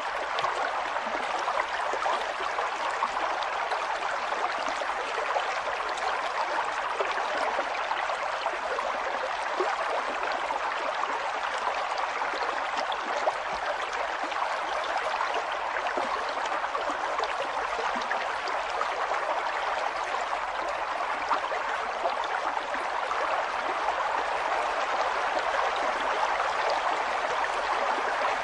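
River water flowing and babbling steadily over stones, an even rushing splash with fine gurgling detail.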